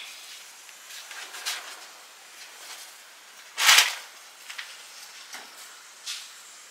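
Household handling noises as a steel plate is moved about a hanging bamboo basket: a few soft knocks and rustles, with one louder scraping rustle a little past halfway.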